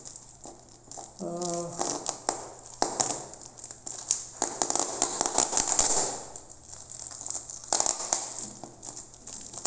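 Thin plastic wrapping crinkling and rustling with scattered sharp clicks as a wrapped cardboard box is handled and unwrapped, coming in spells of a second or two. A brief voice sounds about a second and a half in.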